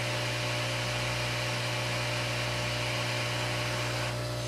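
A hot air rework station blowing steadily, a constant airy hiss, while the solder under a newly placed iPhone 6 LCD connector reflows. A steady electrical hum runs underneath, and the hiss eases slightly near the end.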